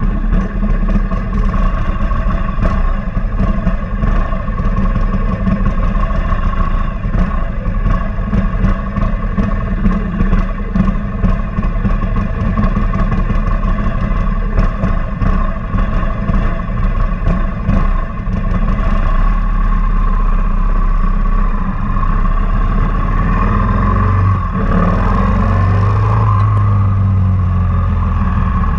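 S&S V-twin engine of a 2003 Big Dog Bulldog chopper running under way, heard from the rider's seat, with many short crackles over the first two-thirds. The engine gets smoother and louder about two-thirds in, and its note rises briefly near the end.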